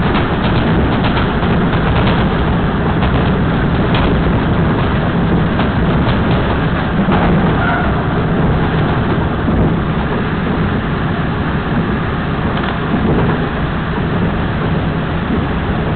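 DR2700 diesel railcar running at speed, heard from the front of the car: a steady loud rumble of engine and running noise, with short clicks and knocks in the first few seconds.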